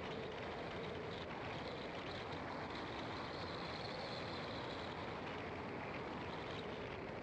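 Steady road noise of a car driving: engine and tyre noise at an even level, with a faint high hiss that swells and fades in the middle.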